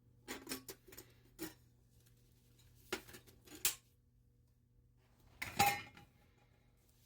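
Handling a freshly opened metal food can: a series of light clinks and knocks. The loudest comes about five and a half seconds in and rings briefly.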